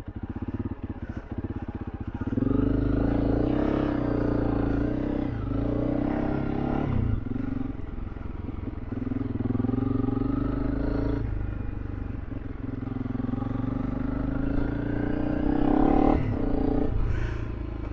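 Honda CRF300L Rally's single-cylinder engine running at low revs for the first two seconds, then opened up, its pitch rising and falling several times with throttle and gear changes as the bike is ridden along a dirt track.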